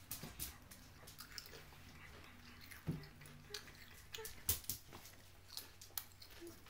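Belgian Shepherd puppies play-fighting, with irregular soft clicks and scuffles of mouths, paws and claws. A short low growl comes about three seconds in.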